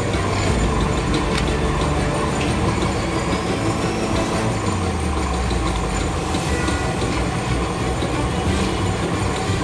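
Metal-turning lathe running steadily, its chuck spinning a wheel hub held for turning.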